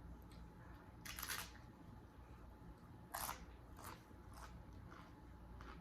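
Close-up crunching of tortilla chips being bitten and chewed: two loud crunches about one and three seconds in, with fainter crackles between and after.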